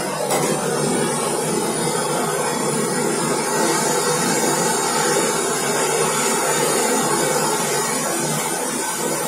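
Handheld gas torch flame burning with a steady rushing hiss. It is heating a copper pipe joint on a brass shower valve while the joint is being soldered.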